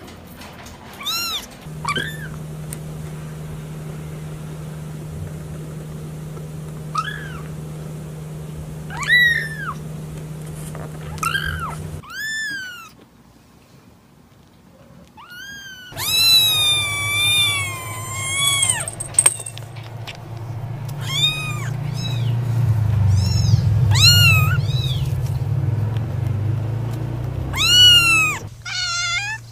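Very young kittens mewing: repeated short, high-pitched mews that rise and fall, some overlapping, with a quiet gap about halfway through and a low steady hum underneath in places.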